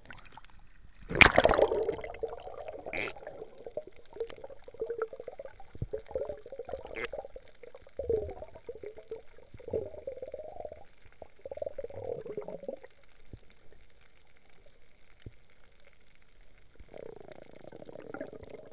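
Underwater water noise at the camera: irregular gurgling and bubbling rushes, with one loud knock about a second in.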